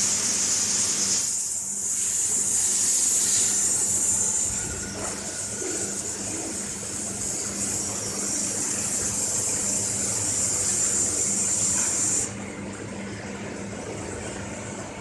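Commutator moulding presses running: a loud, steady high hiss with a low machine hum under it. The hiss cuts off suddenly near the end, leaving the hum.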